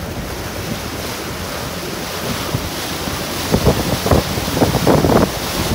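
Wind buffeting the microphone over the rush of water churned up in a towing boat's wake; the gusts get stronger about halfway through.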